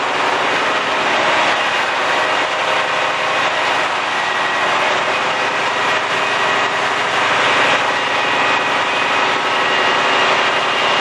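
Detroit Diesel Series 60 inline-six truck diesel running steadily at a fast idle of about 1400 rpm, held up just after a hard cold start so that it does not stumble while it is still smoking.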